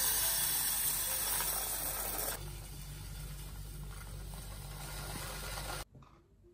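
Dry food pouring from a bag into a tall glass jar as a steady rush of small grains. About two and a half seconds in it switches to rolled oats pouring into a glass jar, a quieter rush. The pouring cuts off abruptly near the end.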